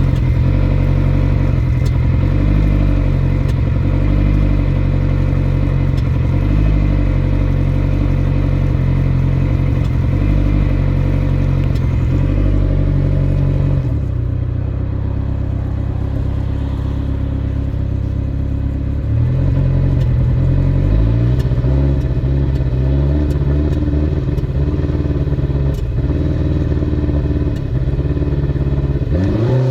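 Vehicle engine running with an uneven beat that the owner takes for a miss (misfire). It settles to a lower speed about halfway through and is revved up and down several times in the second half.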